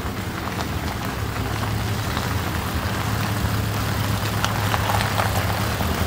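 Toyota LandCruiser's V8 running slowly with a steady low hum while towing a caravan, its tyres crunching and crackling over a gravel track.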